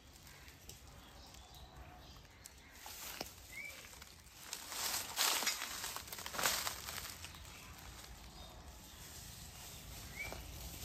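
A spectacled cobra being hauled up out of a well on a snake hook, with two loud rushing, hiss-like noises about five and six and a half seconds in.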